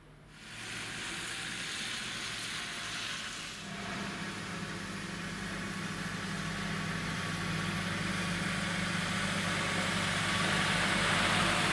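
Articulated lorry's diesel engine running as it approaches, growing steadily louder, over a steady hiss of tyres on wet tarmac.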